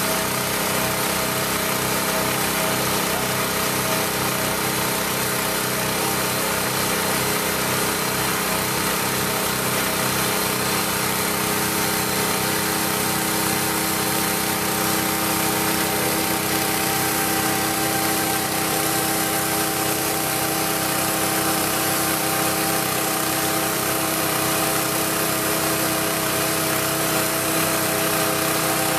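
Vacuum lifter's motor and vacuum pump running steadily, holding suction on a 1-inch steel street plate. A fast low throb underneath fades out about halfway through.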